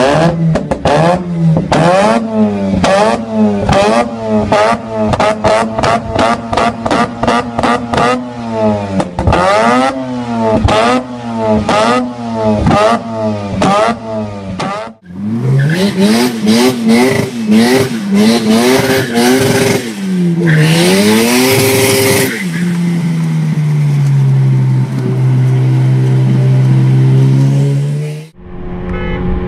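Mazda RX-8 twin-rotor rotary engine being revved while parked: rapid, repeated throttle blips rising and falling several times a second. About halfway through, the sound cuts to longer rev sweeps, and then the revs are held steady for several seconds before cutting off.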